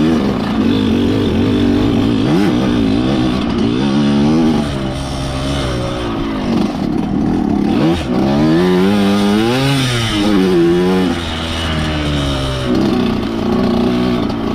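Two-stroke trail motorcycle engine revving, its pitch rising and falling again and again over a steady run.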